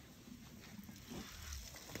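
Faint scuffing and low rumbling sounds from African elephants shuffling on sandy ground close by, with a soft low thud about a second and a half in.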